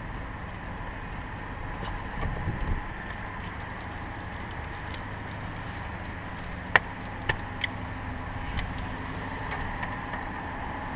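Wind buffeting the microphone with low handling bumps, then three sharp clicks a little under a second apart, about seven seconds in.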